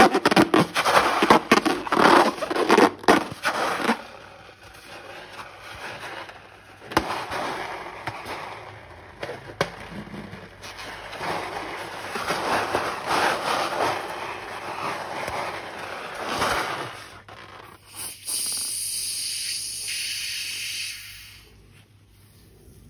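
Slime being worked and mixed by hand, giving dense crackling and scraping noises that are loudest in the first few seconds and then go on more softly in uneven swells. Near the end a steady hiss runs for about three seconds, then it goes quiet.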